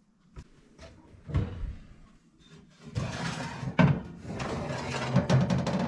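Knocks and clatter of objects being handled and set down, with a few sharp clicks early on and busier noisy stretches about three and five seconds in.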